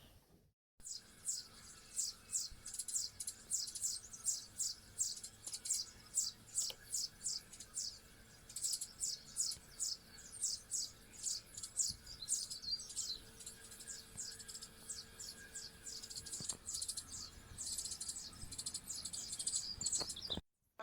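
A small bird repeating a short, high-pitched chirp about three times a second, the notes coming faster near the end.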